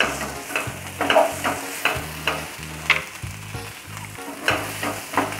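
Slotted spatula scraping and tossing broccoli around a nonstick frying pan over a light sizzle, in quick repeated strokes of about two a second with a short pause past the middle.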